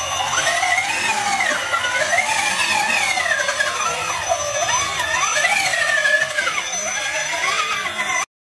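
RC crawler truck's electric motor and gears whining, the pitch rising and falling with the throttle as it drives through muddy water. The sound cuts off suddenly near the end.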